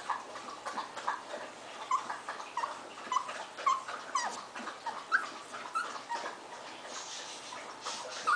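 A litter of three-week-old puppies whimpering and squeaking, many short high squeals scattered irregularly, some rising or falling in pitch.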